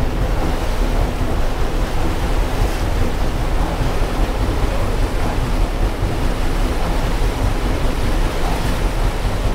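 Water rushing and foaming along the hull of the paddle steamer Waverley as she steams ahead, with wind buffeting the microphone.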